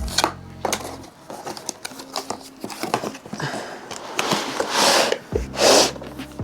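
Box packaging being handled, with scattered light knocks and two longer rubbing, sliding swishes about four to six seconds in, over background music.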